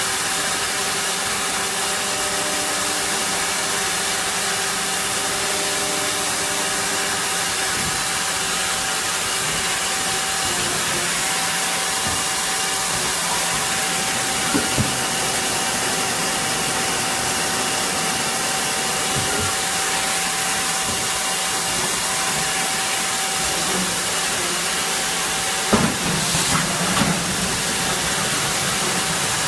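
CNC machine running: a steady hiss with a thin, steady whine through much of the middle. There are two short knocks about halfway and a louder knock followed by a brief clatter near the end.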